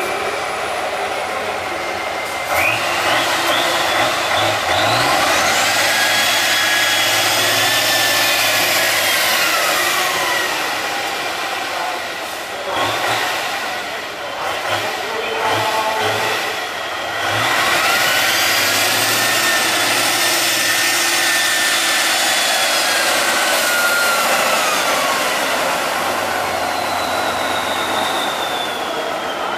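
Tatra 813 8x8 trial truck's engine revving hard under load on a muddy climb. It comes in two long pushes, each with a whine that rises, holds and falls away, with a rougher, lower stretch between them around the middle.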